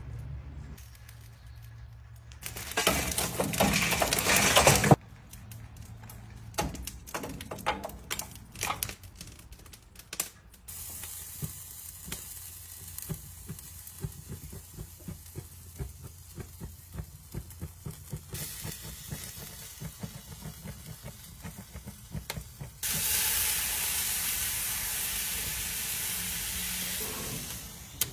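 Chicken sizzling on hot grill grates: a steady hiss with scattered crackles and pops, rising to a louder, even hiss near the end. A loud rushing noise and a run of clicks come a few seconds in.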